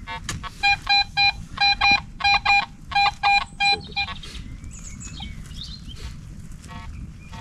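Metal detector giving a run of about a dozen short beeps at one steady pitch, mostly in quick pairs as the coil sweeps over the excavated soil. This is a target signal from metal in the spoil heap. The beeps stop about four seconds in.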